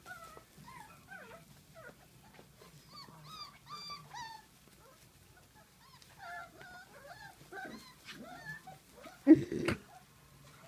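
A litter of young puppies whining and squeaking: many short, high calls that rise and fall in pitch, with one louder, lower burst near the end.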